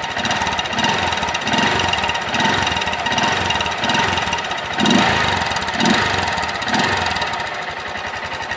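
Honda Fan 160 motorcycle's single-cylinder four-stroke engine, breathing through a homemade PVC-pipe exhaust extension, revved in repeated short blips about once a second over its idle. The loudest blip comes about five seconds in.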